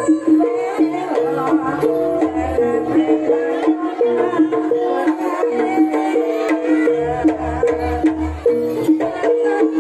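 Javanese jaranan pegon music: pitched percussion plays a fast, evenly repeating melody over deep drum strokes, with a run of drum strokes about seven seconds in.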